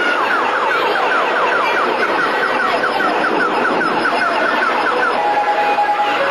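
Electronic siren-like chirps: a falling tone repeating about four times a second over the hubbub of a crowded hall. Near the end the chirps stop and a simple beeping electronic tune starts.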